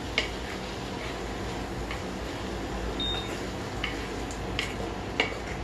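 A wooden spatula scrapes and taps now and then against a non-stick kadhai as soaked sabudana is stirred in ghee, over a steady background noise from the running induction cooktop. About three seconds in, the induction cooktop gives one short high beep as its power setting is lowered from 800 to 600.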